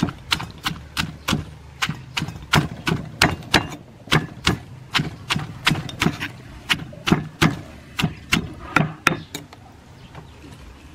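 Wooden pestle pounding shredded green papaya salad in a stone mortar: a steady run of knocks, about three a second, that stops about nine and a half seconds in.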